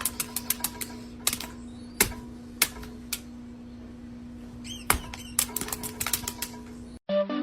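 Irregular sharp clicks and taps, some in quick runs, over a steady hum, with a brief chirp near five seconds. The sound cuts off about seven seconds in and music with a flute begins.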